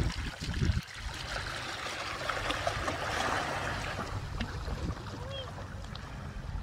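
Shallow seawater lapping and trickling at the shoreline, with wind rumbling on the microphone for about the first second.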